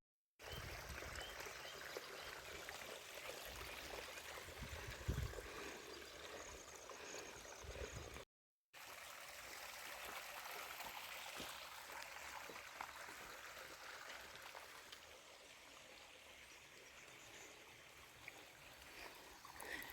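Faint running water: a small stream trickling, a steady low hiss, with the sound cutting out completely twice for a moment.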